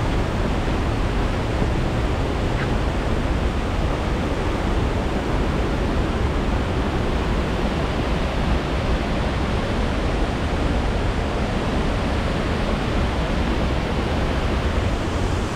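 Steady, unbroken rush of fast-flowing water from a mountain stream or waterfall.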